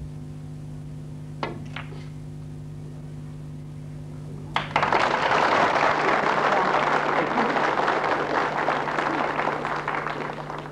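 Snooker balls clicking: the cue tip striking the cue ball and the cue ball hitting an object ball a moment later, then a sharper knock a few seconds on. Audience applause follows about halfway through and fades near the end.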